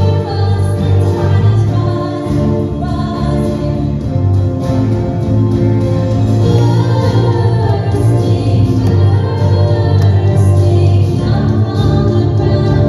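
Worship music with singing over a steady instrumental backing.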